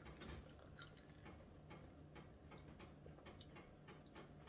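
Near silence: room tone with faint, rapid, regular ticking and a low steady hum.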